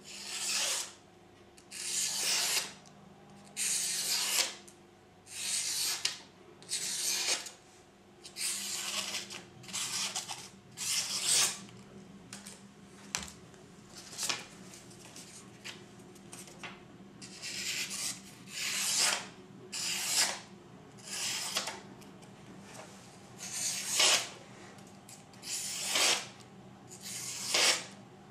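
Steel Will Gekko 1510 folding knife slicing through a sheet of paper, a paper-cutting test of its edge's sharpness. It makes about eighteen separate hissing, rasping cuts, roughly one every second and a half.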